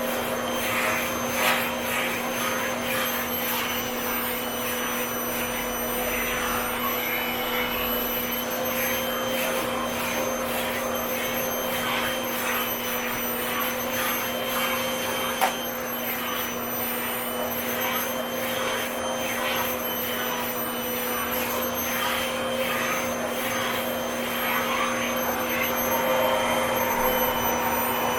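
Vacuum cleaner running steadily with a constant hum, its sound wavering as the nozzle is moved about, with one sharp click about halfway through.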